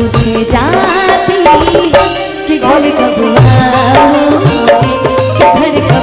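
Instrumental interlude of a live stage band: a hand-drum rhythm under a melodic lead line that slides between notes, with no singing.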